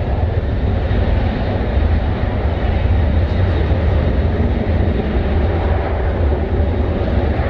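Jet airliner engines giving a loud, steady, deep rumble.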